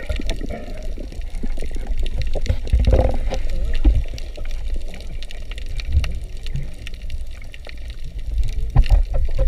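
Water heard underwater through an action camera's waterproof housing: a muffled low rumble of moving water with constant crackling and bubbling, and a few louder thumps, the biggest near the end.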